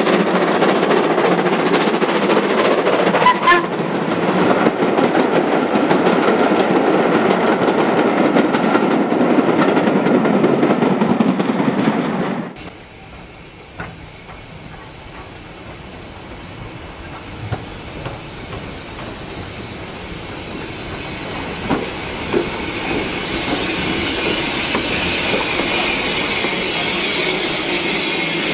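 Steam tank locomotive working a train of coaches past, its exhaust loud and busy. After a sudden cut it is much quieter, with a few knocks, then a high steam hiss builds near the end as the locomotive comes close.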